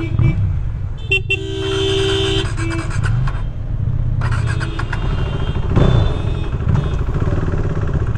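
Vehicle horn honking in street traffic: one held toot of about a second, starting about a second in, then a short second toot. A low, steady engine and traffic rumble runs underneath.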